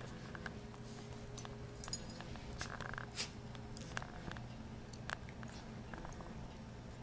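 Wolf pups moving about and chewing: faint, scattered small clicks and scuffs over a steady low hum, with one brief higher sound near the middle.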